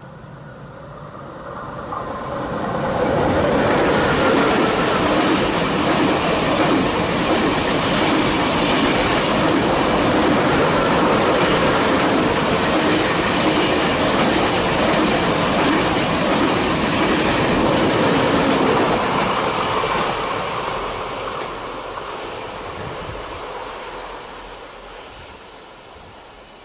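Two coupled TGV Euroduplex double-deck high-speed trainsets passing at speed: the rumble of wheels on rail swells over the first few seconds, holds loud and steady for about fifteen seconds, then fades away as the train draws off.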